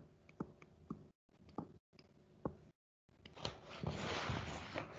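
Faint, sparse clicks of a stylus tapping and writing on a tablet screen. About three seconds in, a soft hiss-like noise rises and lasts for a couple of seconds.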